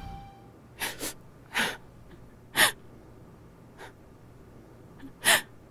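A person sniffling while crying quietly: about six short, sharp sniffs and caught breaths at irregular intervals. Background music fades out at the very start.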